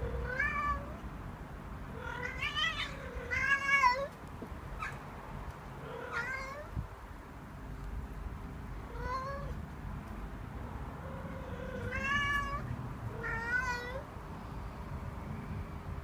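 Intact tom cat trilling and meowing, about seven short calls that each rise in pitch, a second to three seconds apart: courtship calls to a spayed female cat.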